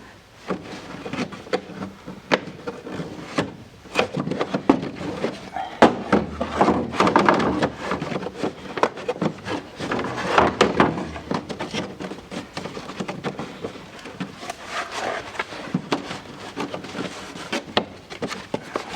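Air filter box being handled and assembled: a run of light clicks, knocks and rubbing as the filter is seated and the cover fitted.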